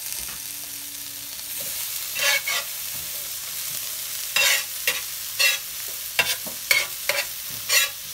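Sliced bell peppers and onions sizzling steadily on a hot griddle. From about two seconds in, about ten short scrapes and clacks of tongs against the griddle as the vegetables are pushed together into one pile.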